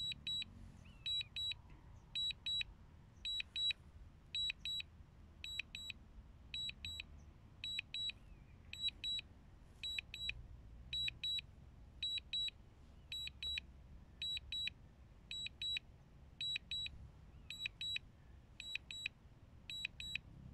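DJI Mini 2 remote controller beeping its return-to-home alert: pairs of short, high beeps repeating about once a second, the sign that automatic return to home is under way.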